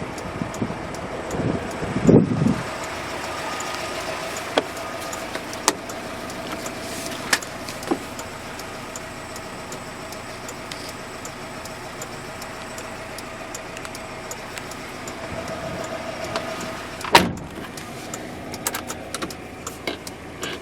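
Steady mechanical hum inside the cab of a GAZelle van, with scattered sharp clicks and a loud clunk about seventeen seconds in.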